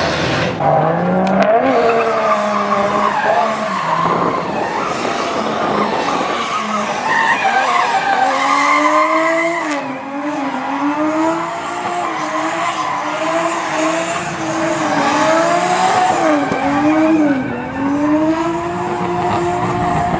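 Nissan Silvia drift car sliding with its engine revving hard. The revs rise and fall again and again, and the tyres squeal throughout.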